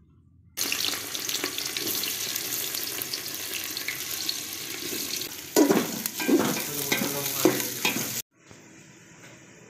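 Sliced onions sizzling in hot oil in an aluminium pot, being stirred with scraping strokes against the pot, loudest a little past halfway. The sizzling starts suddenly about half a second in and cuts off near the end.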